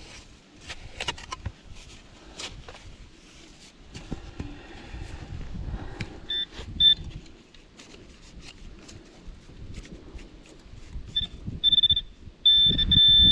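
Shovel scraping and clicking into riverbank soil while digging out a detector signal, then a metal detector giving short high-pitched beeps over the hole, twice and then again, ending in a longer steady beep. A loud low rumble comes in near the end.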